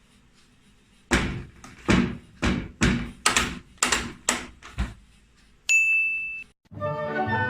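About eight heavy thuds or knocks in an uneven run, then a single electronic beep lasting under a second.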